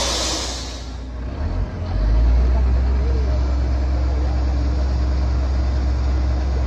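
Truck air brakes release with a sharp hiss that fades within the first second. Then a heavy diesel truck engine runs steadily, louder from about two seconds in.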